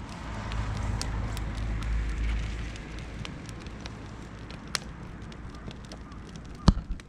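Beech and oak wood fire crackling, with sharp pops scattered through it. A low rumble swells over the first few seconds and fades, and a few heavy knocks come near the end.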